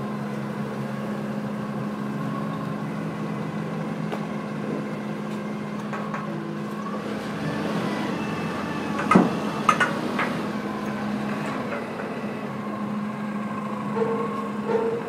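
Diesel forklift engine running steadily nearby, with a few sharp metallic knocks about nine to ten seconds in and a couple more near the end.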